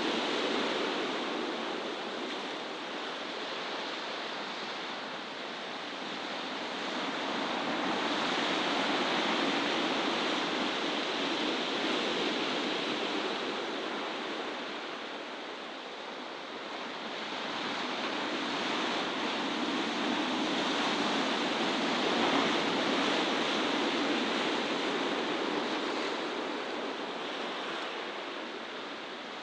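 Sea surf washing against the shore, a steady rushing that swells and eases slowly, about every ten seconds.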